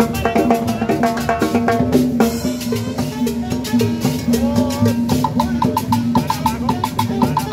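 Live salsa from a street band: congas and timbales drive a busy rhythm under held melodic notes. About five seconds in, a steady high click joins at about four strokes a second.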